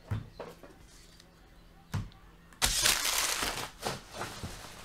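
Empty foil trading-card pack wrappers being scooped up and crumpled, a loud crinkling that starts about two and a half seconds in and lasts over a second. Before it come two dull thumps as the stacks of cards are gathered off the mat.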